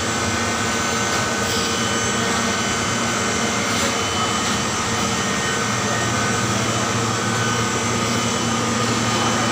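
Refrigeration machinery of an air blast freezer giving a loud, steady drone of fan and compressor noise, with several steady hum tones running through it.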